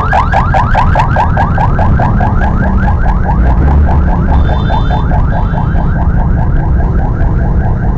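Electronic siren repeating fast rising whoops, about five a second, over the low rumble of traffic and wind.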